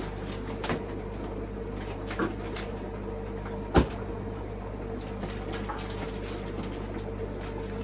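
Steady electric hum of running equipment, broken by a few handling knocks and clicks while koi fry are being released from their bags into a tank; a sharp knock a little under four seconds in is the loudest.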